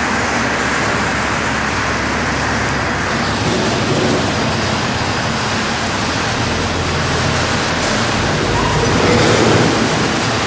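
Steady mechanical rumble of heavy factory machinery, getting a little louder about nine seconds in.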